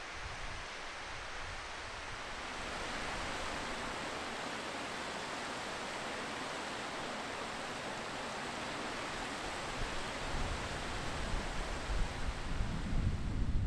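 Mountain stream rushing down over rocks, a steady hiss. Near the end, gusts of wind buffet the microphone with uneven low rumbles.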